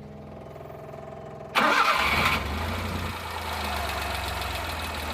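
Suzuki Multicab's F6A three-cylinder engine cranking on the starter for about a second and a half, then catching with a sudden loud burst and settling into a low idle. It is a hard start, caused by the PCV valve set fully open and drawing too much vacuum.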